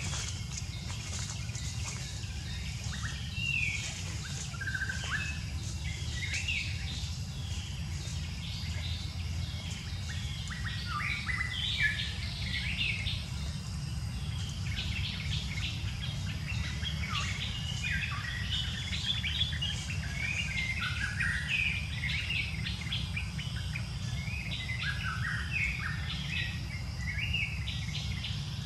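Wild birds chirping and calling, many short calls that come thicker from about ten seconds in, over a steady low rumble.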